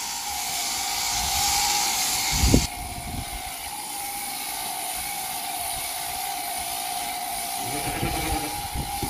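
Electric sheep shears running steadily with a hum as they clip through a sheep's fleece. A louder hiss sits on top for the first couple of seconds and cuts off suddenly, just after a low thump.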